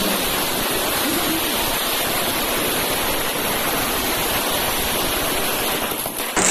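Steady, even din of a packed street crowd, with no single voice standing out; it dips briefly near the end.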